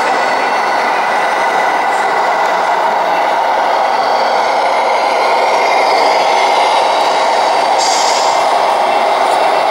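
Radio-controlled model trucks running: a loud, steady mechanical noise that stays even throughout, with no clear engine note.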